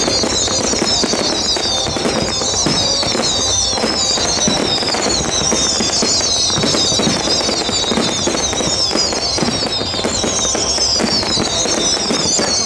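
Music with fireworks bursting and crackling throughout. A high falling figure in the music repeats about every second and a quarter.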